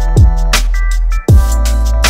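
Electronic background music: a sustained deep bass under quick hi-hat ticks, with two heavy kick drums that drop in pitch, one near the start and one past the middle.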